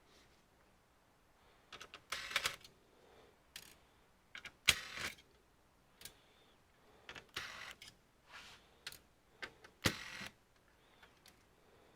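Short plastic clicks, snaps and brief rattles from handling and taking off an all-in-one computer's plastic back cover, in scattered clusters with the sharpest about five seconds in and again near ten seconds.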